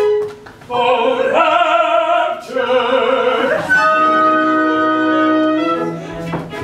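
Live operetta music from a small theatre orchestra: after a brief pause, a lyrical phrase with vibrato, then a held chord.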